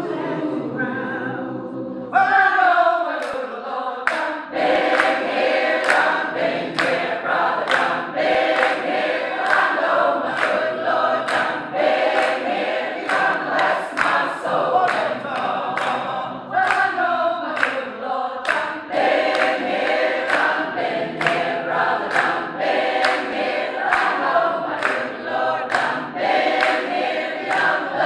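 Gospel choir of men and women singing together a cappella, with steady hand-clapping on the beat.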